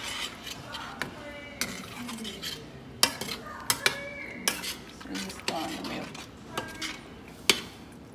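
A utensil stirring melting cheese cubes and milk in a stainless steel saucepan, scraping around the pan with several sharp clinks against its sides.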